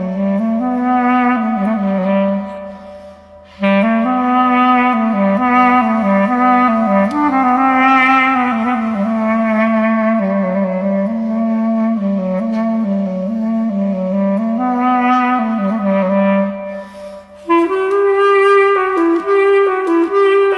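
A single woodwind instrument, clarinet-like, playing a slow, wavering melody in long phrases. It breaks off briefly twice and moves to a higher register near the end.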